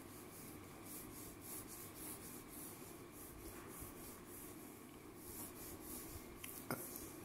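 Faint scratching of a pencil on paper as light sketching strokes are drawn, with a small click near the end.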